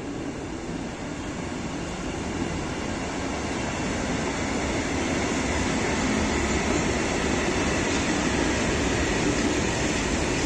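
Electric-hauled freight train of tank wagons rolling past, the steady rumble of wheels on rail growing louder over the first half and then holding steady as the wagons go by.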